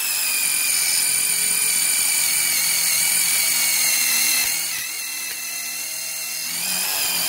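DeWalt DCF887 cordless impact driver spinning a quarter-inch Hercules hex-shank drill bit flat out into 304 stainless steel: a steady high-pitched motor and gear whine with no impacting, because the bit isn't meeting enough resistance to make the tool hammer. The whine eases slightly for a couple of seconds past the middle and picks up again near the end.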